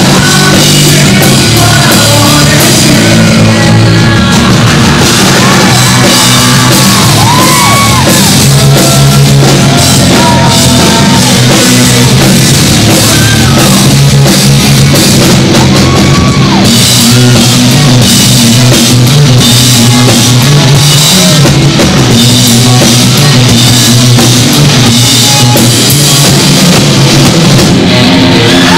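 Rock band playing live at full volume: distorted electric guitar, bass guitar and drum kit. The recording is overloaded and its loudness barely varies.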